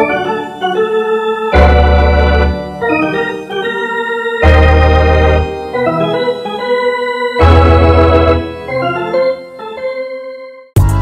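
Background music: a sustained organ-like keyboard tune over deep bass notes that come in about every three seconds. It cuts off just before the end, and a different track with a fast beat starts.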